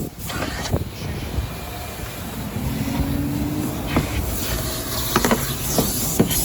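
Wind buffeting the microphone in a steady low rumble, with a few light knocks.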